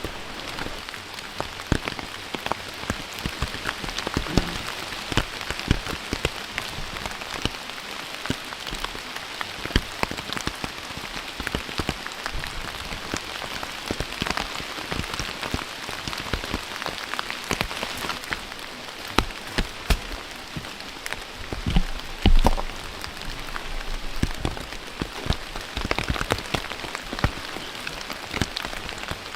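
Steady rain falling, with a dense patter of individual drops ticking on a surface, and one louder thump about three-quarters of the way through.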